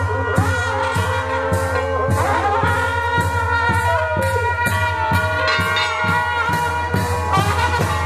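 Music with a brass, trumpet-like melody over a steady beat of about two to three strokes a second and a constant deep bass.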